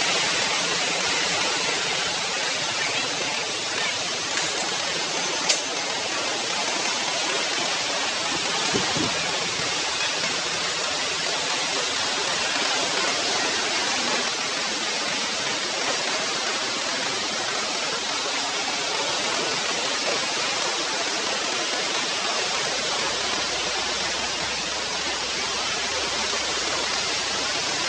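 Steady rushing of shallow sea water washing through mangroves, with one sharp click about five and a half seconds in.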